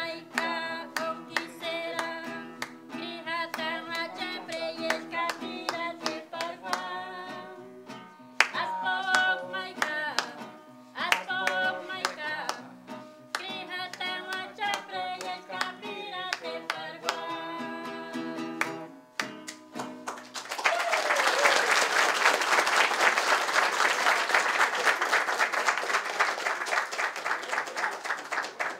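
A person singing to a strummed acoustic guitar. About twenty seconds in the song ends and loud applause follows.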